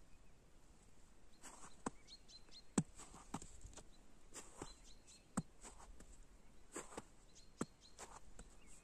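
Footsteps crunching in fresh snow, irregular and crisp, about one every half second to second, over a faint outdoor hush with a few faint bird chirps.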